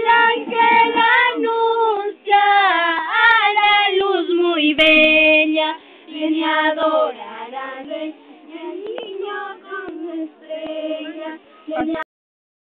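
A group of women and children singing a carol together in high voices. The singing stops abruptly near the end.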